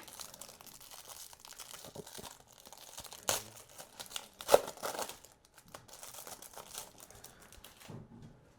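Trading card packaging being torn open and crinkled by hand: irregular crackles and tearing, loudest about four and a half seconds in, dying away near the end.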